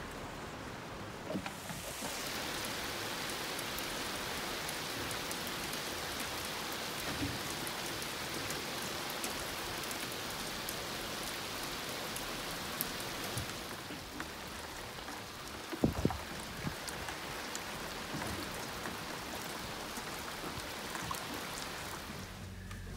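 Heavy rain falling steadily on the sea and the boat's deck. In the second half, rainwater collected off the catamaran's hard top runs into a plastic bucket, with a couple of short knocks about sixteen seconds in.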